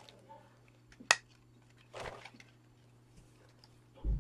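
Quiet handling of a cotton t-shirt as it is picked up and unfolded. There is one sharp click about a second in and a dull low bump near the end.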